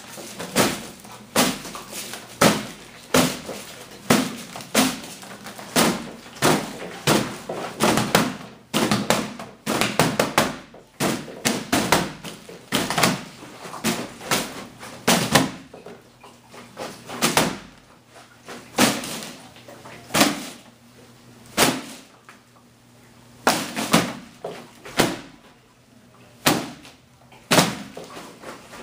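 Hands and forearms striking the hollow plastic arms of an Attachemate strap-on Wing Chun training dummy: a long, irregular run of sharp knocks and slaps, often in quick flurries of two or three. The blows come thickly at first and more sparsely, with short pauses, in the second half.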